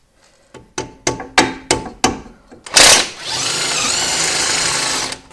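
A few metal clinks and knocks, then a loud sharp clank, then an electric power tool running steadily for about two seconds, spinning out the Suzuki Swift's old front lower ball joint.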